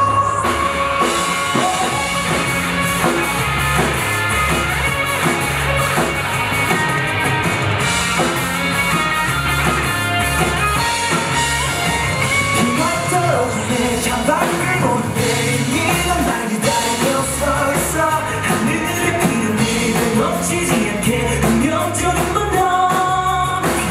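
Pop-rock band music with singing over drums and keyboards.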